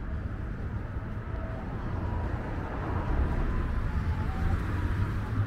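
City street traffic noise: a steady low rumble of vehicles that swells slightly around the middle.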